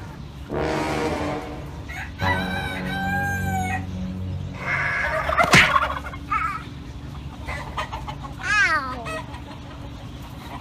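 A rooster crowing: one long call starting about two seconds in, among shorter bird calls, with a sharp knock about halfway through.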